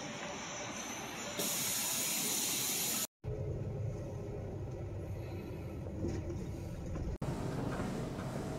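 A coach bus in a parking lot with a loud hiss starting about one and a half seconds in. Then the steady low rumble of the bus's engine and road noise heard from inside the cabin. Near the end this gives way to the quieter hum of an indoor hall.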